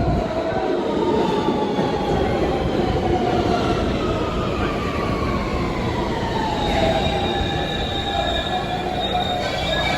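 New York City subway train running, with a steady rumble and squealing wheels. A whine falls slowly in pitch through the middle, and high steady squeals come in during the second half.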